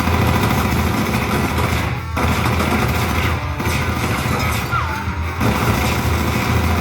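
Action-film soundtrack played through a Yamaha YAS-207 soundbar: rock music mixed with bursts of gunfire and crashes, with several abrupt cuts.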